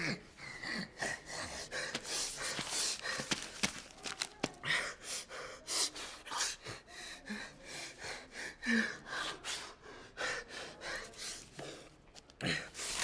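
A young man crying without words: a rapid run of gasping, shaky breaths and sniffs, with a few brief catches of voice.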